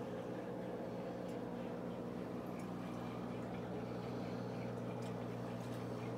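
Aquarium filter running: a steady hum with water trickling and a few faint ticks.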